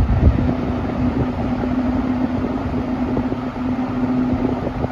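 Wards Signature Model 48083 20-inch box fan, built by Hunter/Robbins & Myers with an R&M motor, running in its forward (intake) direction: a loud, steady rush of moving air with a steady hum beneath it.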